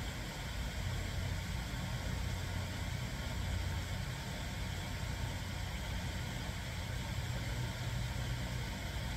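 Steady low engine-like rumble under a faint even hiss.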